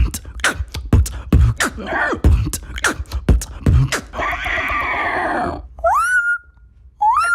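Human beatboxing: a quick pattern of mouth kicks and snares for about four seconds, then a held, raspy vocal sound, then two short whistles that rise and level off near the end, the start of a parrot imitation.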